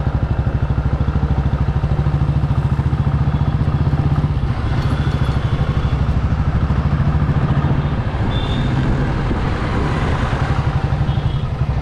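A two-wheeler's engine running steadily while riding through town traffic, a low, fast-pulsing hum with road noise around it. Its note dips briefly about five seconds in and shifts again around eight seconds.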